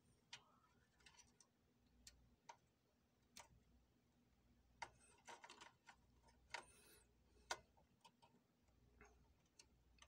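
Near silence broken by faint, irregular clicks and taps from a RAM module being handled and lined up in a motherboard's memory slot.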